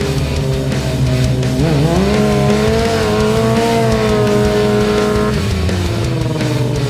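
Yamaha stunt motorcycle's engine revving up about two seconds in and holding high revs through a wheelie, easing off a little after five seconds in and revving up again near the end. Background music runs underneath.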